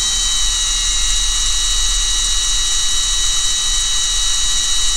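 Handheld power drill running steadily with a high whine, its twist bit drilling out a rivet in a diecast metal toy body.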